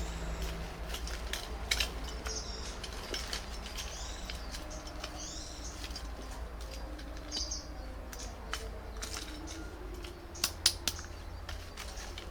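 Several short bird chirps over scattered sharp clicks and knocks, the loudest knocks about two seconds in and a quick pair near the end, with a steady low hum underneath.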